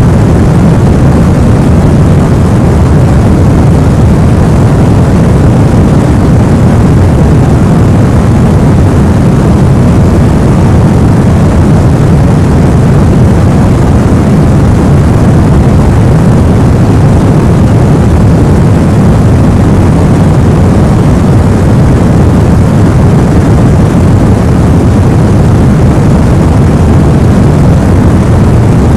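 Steady white-noise sleep sound for babies: an even, deep rumbling hiss, heaviest in the low end, that never changes.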